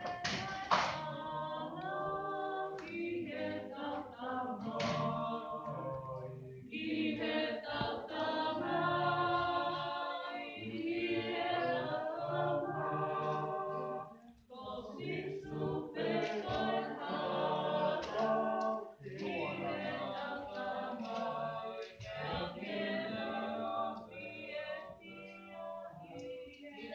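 A group of children singing a song together, in sung phrases broken by brief pauses.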